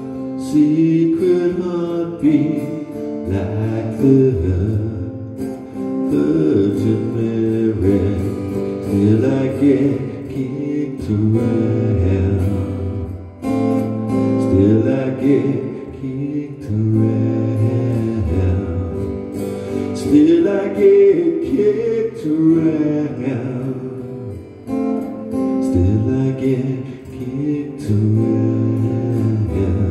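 A man singing to his own strummed acoustic guitar in a live solo performance.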